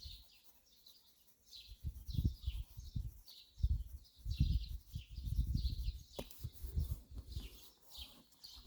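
Small birds chirping over and over, short high chirps. From about a second and a half in, louder irregular low rumbling buffets come and go, with a single sharp click a little after six seconds.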